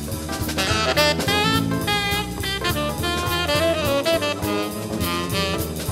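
Live jazz played by an accordion orchestra with saxophone, drum kit, bass and guitar. The saxophone carries the melody over the accordions and a steady swinging drum beat.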